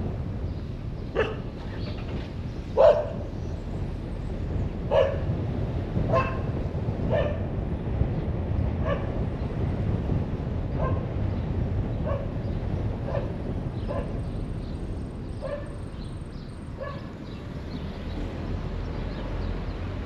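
A dog barking over and over, about once a second, loudest about three seconds in and fading toward the end, over the steady low rumble of a car driving.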